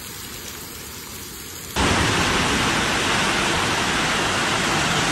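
Steady hiss of heavy rain and running floodwater, fairly quiet at first. About two seconds in it jumps abruptly to a much louder, dense, even rush that holds steady.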